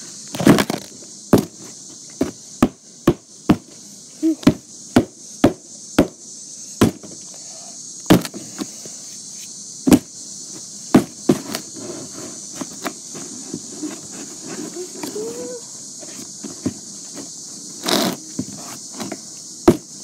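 A hammer beating on a cardboard box: about twenty hard, irregular blows, coming fast in the first seven seconds, then a lull before a few more near the end. Insects drone steadily behind it.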